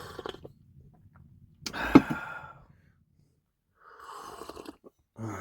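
A person sipping hot coffee: short breathy slurps and exhales, with one louder slurp and a sharp knock about two seconds in.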